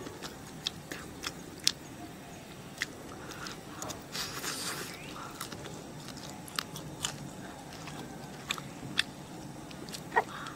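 Close-up eating sounds of a person biting and chewing braised-then-roasted beef hoof, gnawing the meat off the leg bone, with scattered sharp clicks throughout.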